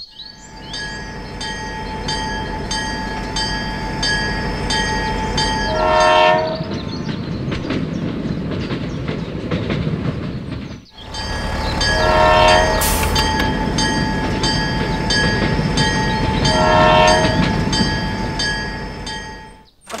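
Toy train running on its track: a steady mechanical hum with a regular clickety-clack, and three short horn toots, one about six seconds in and two in the second half. The sound breaks off for a moment in the middle and starts again.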